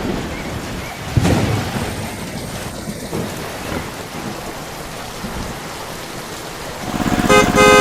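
Thunder rumbling over steady rain, with a louder clap about a second in. Near the end a buzzing motor starts up.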